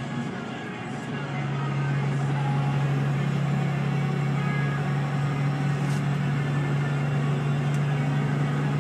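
Steady low drone of a car driving at highway speed, heard from inside the cabin: engine and road noise, getting louder a little over a second in.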